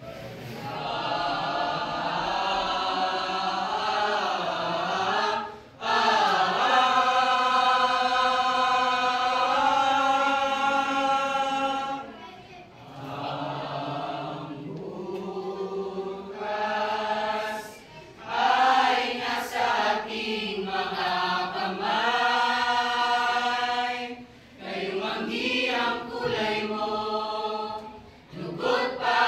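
A mixed group of teenage students' voices singing together in long held phrases, broken by short pauses every five or six seconds.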